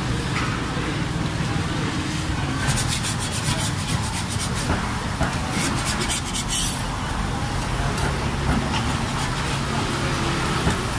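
Metal spatula scraping across a flat crepe griddle as it is worked under the edge of the crepe, in two quick rasping spells, the first a few seconds in and the second about six seconds in. Steady street traffic rumbles throughout.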